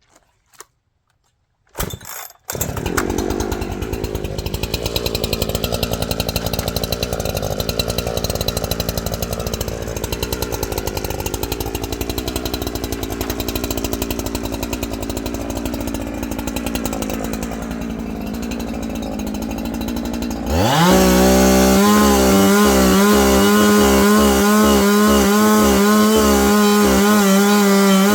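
A chainsaw starts about two seconds in and runs at a low, uneven idle, then revs up sharply about twenty seconds in and holds at high, steady revs, cutting off the top of a 4x6 post.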